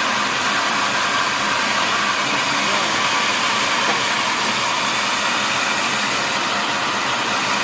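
Sawmill machinery running steadily, a loud, even, mostly high-pitched noise with no breaks.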